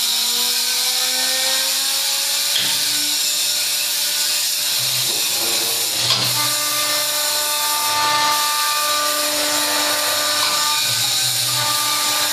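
CNC wood lathe's rotary cutter head cutting a turning wooden spindle: a steady hiss of cutting with several steady motor tones, one rising slowly over the first two seconds, and a sharp click about six seconds in.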